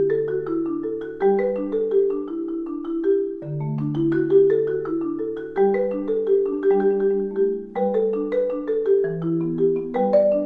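Background music: a melody of struck, ringing notes over longer low notes, with no break.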